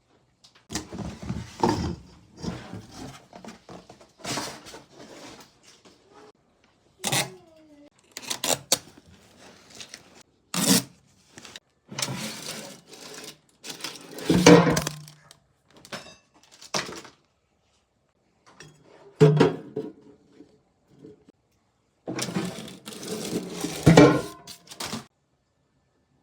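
Packaging being handled and opened during an unboxing: irregular rustling and scraping with knocks and clicks, and a short falling squeak about seven seconds in.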